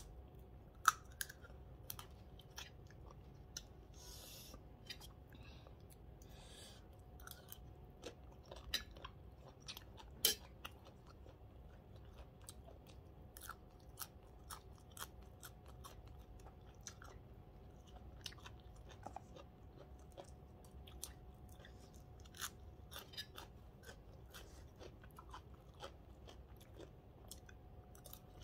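Close-up mouth sounds of a person eating papaya salad and raw greens: chewing with irregular crisp crunches and clicks, the sharpest about a second in and about ten seconds in.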